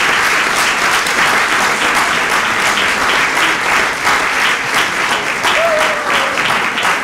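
Theatre audience applauding: loud, dense, steady clapping.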